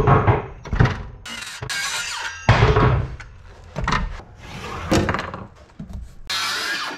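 Knocks and thunks of tools and wood being handled on a plywood workbench, as a cordless circular saw and a framing square are moved about and set down on a mahogany board. There is a heavier thump about two and a half seconds in and a short noisy burst near the end.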